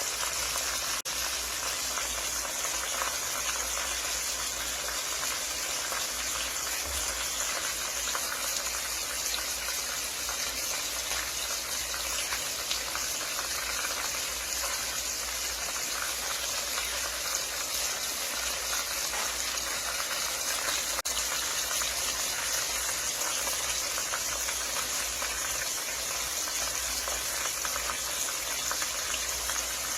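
Food frying in hot oil in a pan: a steady sizzle with dense, fine crackling and popping.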